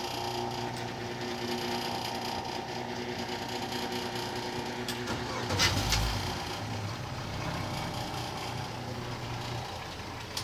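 A pontoon boat's motor running steadily as the boat gets underway, with a brief thump about halfway through.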